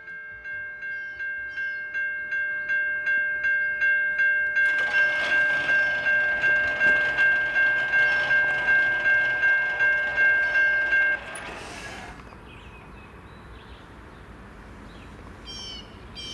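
Railroad grade-crossing warning bell ringing about twice a second, the signal that a train is approaching. An even rushing noise joins it about five seconds in. The bell stops abruptly about eleven seconds in, once the gate arms are down.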